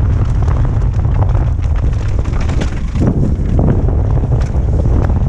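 Mountain bike descending a rough dirt trail: loud wind buffeting the microphone over a low rumble of tyres on dirt, with frequent small rattles and knocks from the bike over the bumps.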